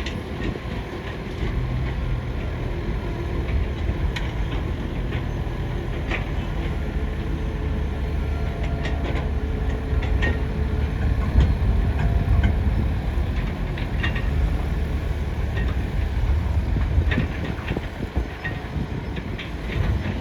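Excavator running with a steady low rumble, overlaid by scattered short clicks and knocks from the digging.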